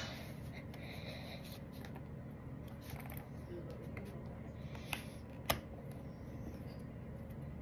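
Faint rustling and handling of a Blu-ray case and its packaging, with a few short sharp clicks, the loudest about five and a half seconds in.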